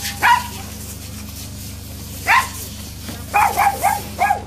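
A dog barking: one bark near the start, another a little after two seconds, then four quick barks in a row near the end.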